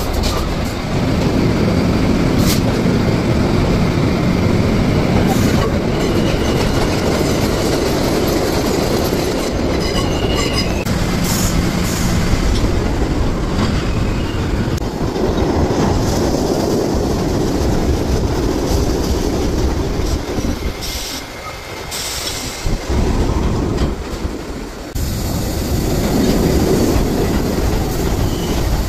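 New York City subway trains running through underground stations: a loud, steady rumble of steel wheels on rail, with brief high wheel squeals. The sound drops away for a few seconds about two-thirds through, then a train comes in again.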